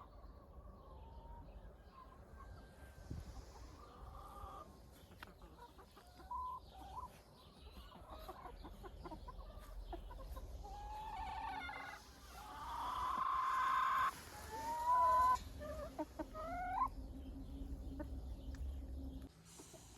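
Chickens clucking and calling: scattered short calls, then a louder drawn-out call about twelve seconds in, followed by a few short rising calls.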